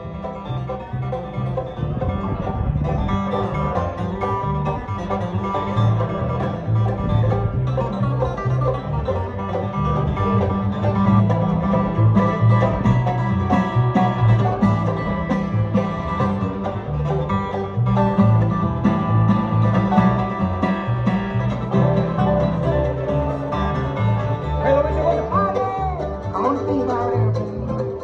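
Bluegrass band playing live: banjo, mandolin, acoustic guitar and upright bass, with a steady, regularly changing bass line under the picked strings.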